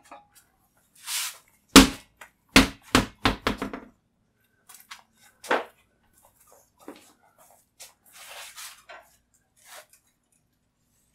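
A quick run of about six sharp knocks and thuds about two seconds in, one more knock a little later, and short rustling scrapes: a motorcycle wheel and tyre being handled.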